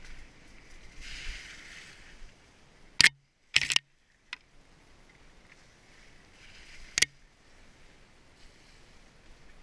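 Mountain bike ridden along a wet, muddy trail, heard from a helmet-mounted camera: a steady hiss of tyres and rushing air. Sharp knocks come a little after three seconds and at seven seconds in, and the sound cuts out for moments around the first knocks.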